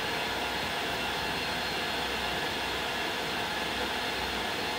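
Steady, unbroken rushing background noise with a faint low hum underneath, like a fan or air conditioner running near the microphone.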